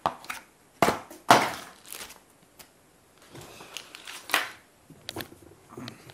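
Unboxing handling: a bubble-wrap bag and plastic packaging rustling and crinkling while a cardboard box is handled, with a few sharp knocks as items are set down on a table. The sounds come in short, irregular bursts; the loudest are about a second in.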